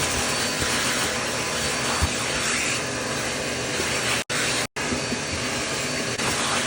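Shop vacuum running steadily with an even rush of air, broken by two brief dropouts past the middle.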